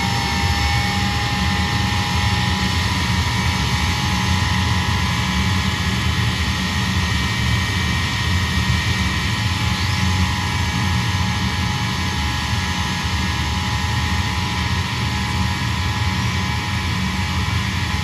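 Ilyushin Il-76TD's Soloviev D-30KP turbofan engines running on the ground during engine start-up: a steady loud rumble with several whining tones over it, a couple of which ease slightly lower in the first second.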